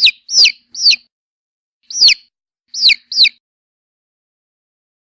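Domestic chick peeping: six short, high peeps, each falling in pitch, with a short gap between the third and the fourth.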